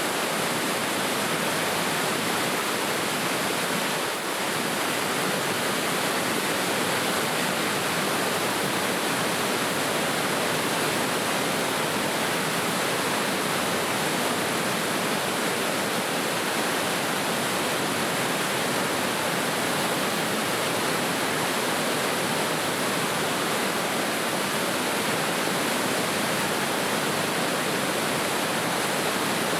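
Rushing river water: a steady, unbroken hiss of flowing current, with a brief dip in level about four seconds in.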